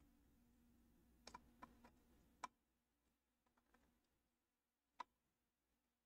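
Near silence with a few faint clicks from laptop wiring and internal parts being handled: a cluster of light clicks about a second and a half in, another at two and a half seconds, and a single click near five seconds.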